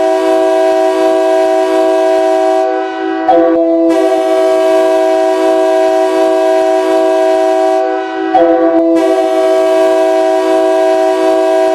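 Ice hockey goal horn: a loud multi-tone air horn sounding one steady chord in long blasts, with brief breaks about three seconds in and about eight seconds in.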